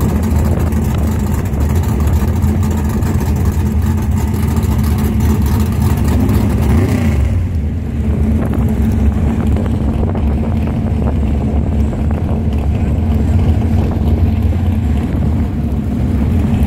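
A drag car's engine runs loud with a heavy low rumble at the starting line and revs up briefly. About halfway through the car pulls away down the strip and the engine sound carries on as it goes.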